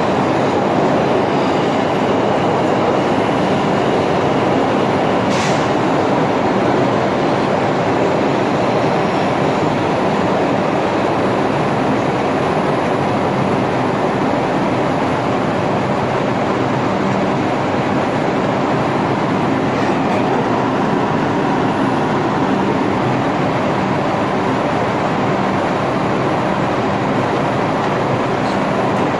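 New York City subway train noise in a tunnel, a loud steady din with a low hum and one brief click about five seconds in.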